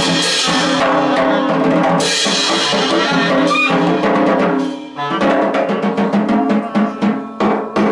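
Live band with a drum kit playing loud: drums under held notes from pitched instruments. About five seconds in the held sound thins out and the drums go on as a run of separate hits, the last one just before the end.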